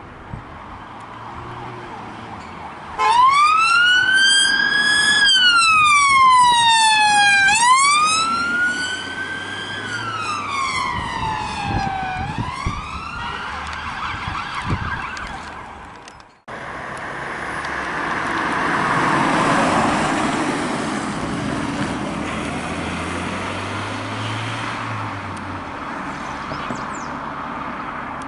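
Emergency vehicle siren on a slow wail, its pitch rising and falling about every two and a half seconds. It starts about three seconds in and fades away as the vehicle moves off. After a sudden cut, a vehicle's engine and tyre noise swells as it passes and then settles.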